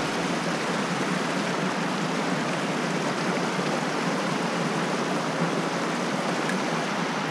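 Mountain stream water running, a steady, even rushing hiss that does not change.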